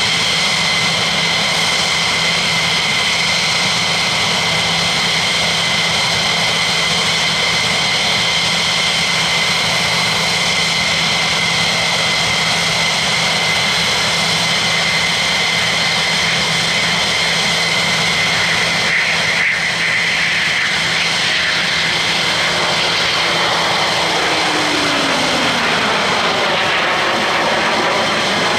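F-15E Strike Eagle's twin jet engines running on the ground, giving a loud, steady turbine whine over a dense rush. Late on, a lower tone slides down in pitch and the sound begins to shift and ripple.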